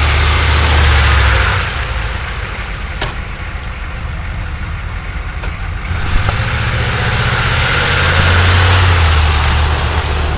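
HMMWV's V8 diesel engine pulling through deep mud and water, with water and mud splashing from the tyres. The engine and splashing are loud for the first second or so, ease off, then build again about six seconds in. A single sharp click comes about three seconds in.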